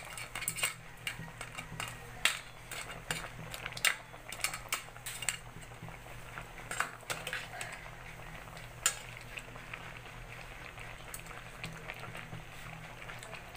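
Crabs, squash and string beans in coconut milk simmering in a metal pot, with a spatula stirring and clicking against the pot. The clicks are thickest in the first few seconds and only scattered after that, over a low steady hum.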